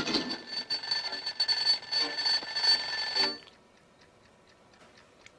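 Alarm-clock bell ringing rapidly for about three and a half seconds, then stopping suddenly, leaving faint ticking.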